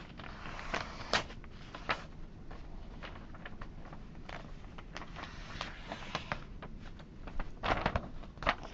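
Faint handling noises of an old Swiss Army knife: scattered clicks and short scrapes as its main blade is worked. One cluster comes about a second in and another near the end.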